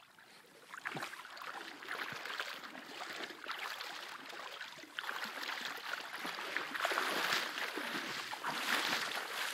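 Shallow sea water splashing and sloshing as someone wades through it, louder in the last few seconds.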